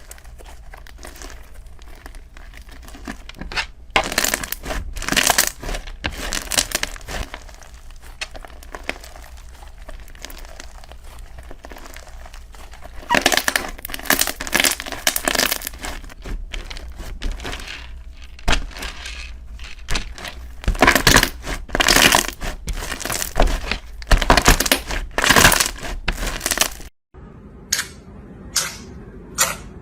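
Slime being squeezed, stretched and poked by hand, making irregular crackling and crinkling bursts. About 27 s in, the sound cuts out for a moment, and then a series of short, sharp pops and clicks follows, about two a second.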